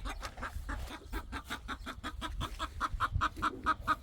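A rapid, even run of short animal calls, about six a second.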